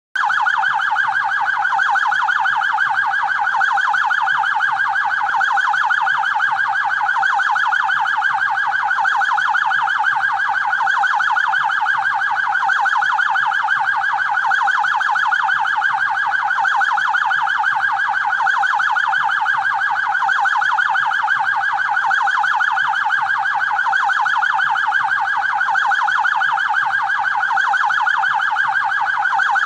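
Police siren sounding a fast warble, its pitch sweeping up and down many times a second without a break.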